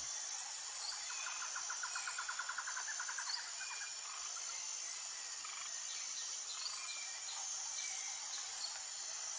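Outdoor ambience: a steady high insect-like drone and hiss, with a bird's rapid trill of repeated notes lasting about two seconds near the start, then scattered short chirps.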